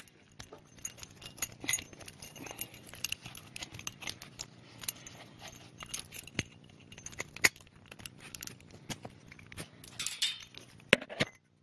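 Keys jangling and clinking in irregular light clicks as an ignition key switch is handled, with a sharper click near the end.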